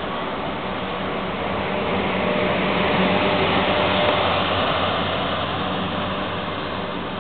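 TGV Réseau high-speed trainset moving slowly past along the platform: a steady rushing hum of wheels on rail and the train's running equipment, swelling a little midway.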